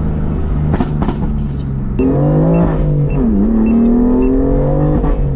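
BMW F82 M4's twin-turbo straight-six heard from inside the cabin while driving, through an exhaust that is straight-piped from the downpipe to the mid-pipe with the stock muffler still on. It drones steadily at first, then from about two seconds in its pitch rises, dips and rises again.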